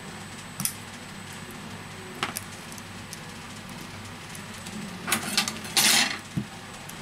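Small plastic clicks as a phone's flex cable connectors are handled and pressed onto the board, then a louder scraping rustle about five seconds in as the new display panel is picked up and laid over the phone body, ending in a soft knock.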